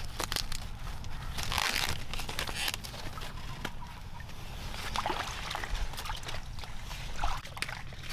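Corn plants rustling and crackling as ears are handled and picked among the leaves, with bare feet sloshing through shallow muddy water.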